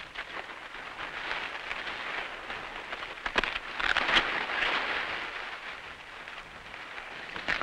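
Dry maize leaves, husks and stalks rustling and crackling as ears of corn are picked by hand, with a few sharper snaps about three and a half to four seconds in.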